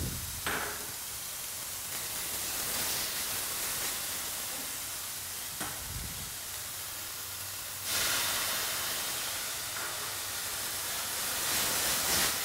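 Bacon, onion and dried mushrooms sizzling in a hot stainless-steel frying pan on a gas burner just after a splash of cognac, the alcohol boiling off in a steady hiss. The sizzle swells louder about eight seconds in, with a couple of brief pan knocks earlier.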